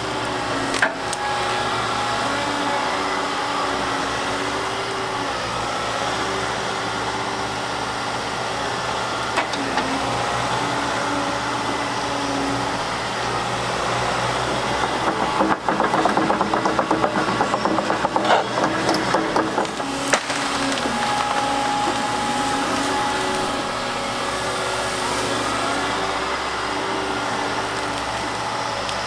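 Volvo excavator engine and hydraulics working steadily, with held whining tones. From about halfway through, a burst of rapid rattling and scraping lasting several seconds, typical of a bucket digging into or tipping stone.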